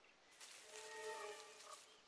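A faint animal call, a held note lasting about a second, over a soft rustle.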